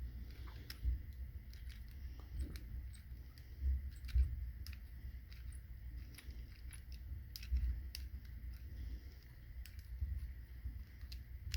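Small irregular clicks and scrapes of a lock pick and tension wrench working the pins of a clear practice padlock, over a low handling rumble.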